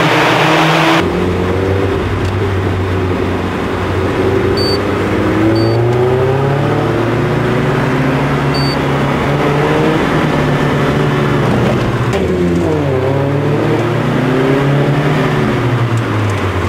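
Vauxhall VX220 engine and sport exhaust heard from inside the cabin, pulling along with the note rising and falling. A louder rush cuts off about a second in, and the note dips and climbs again about twelve seconds in. Three short high beeps sound in the first half.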